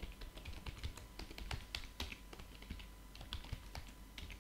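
Computer keyboard typing: a quick, uneven run of key clicks as a terminal command is typed.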